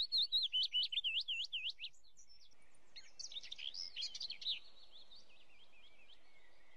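Bird chirping in quick runs of repeated sweeping high notes, several a second, in two bursts: one in the first two seconds and another from about three seconds in that fades out.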